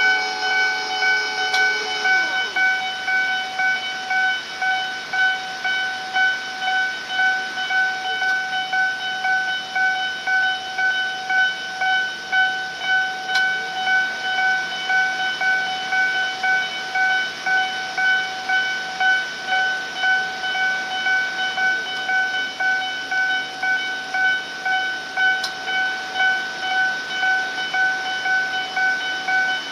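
Japanese railway level-crossing alarm ringing a high-pitched electronic tone over and over at an even rhythm. Another tone sounds at the same time for the first two seconds, then drops in pitch and stops.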